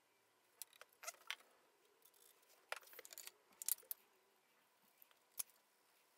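Faint, scattered clicks and taps of hand marking tools, a pencil and a metal square, being handled and set down on a wooden workbench.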